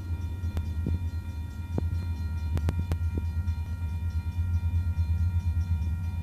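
Union Pacific 2502's diesel engine rumbling in the distance as it leads a train toward the listener, a steady low drone with a few scattered sharp clicks.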